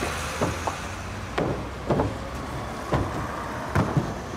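A free runner's running footsteps and jump landings on paving and steps: a string of about seven sharp, uneven thuds.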